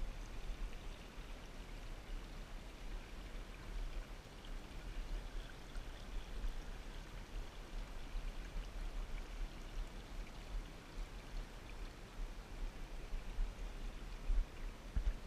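Small, shallow woodland creek flowing and trickling over rocks in a steady wash of water noise, with a low rumble underneath.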